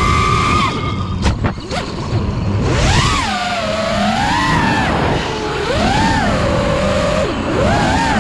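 FPV freestyle quadcopter's brushless motors and propellers whining, the pitch swooping up and down with the throttle through flips and dives. The whine drops away about a second in, with a few sharp clicks, then climbs again near three seconds.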